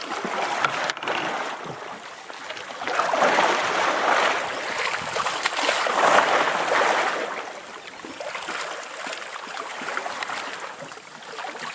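Wind and sea wash aboard a boat at sea: a steady rushing noise that swells louder for a few seconds in the middle, then eases.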